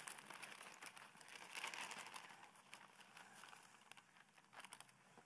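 Faint crinkling of a plastic bag of salad greens as the leaves are tipped out onto a platter, with soft rustling of leaves, dying away toward the end.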